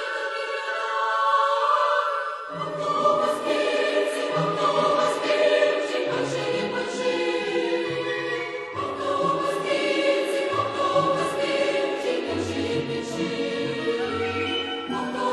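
Background choral music: a choir holding sustained chords, with low bass notes coming in about two and a half seconds in.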